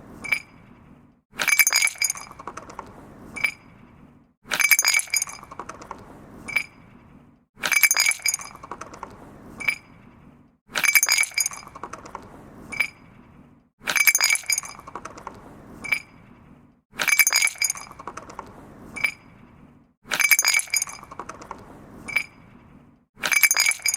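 Glass and stone being moved against each other: a quick cluster of bright clinks fading into a short rattle, then a single clink. The same pattern repeats about every three seconds, eight times.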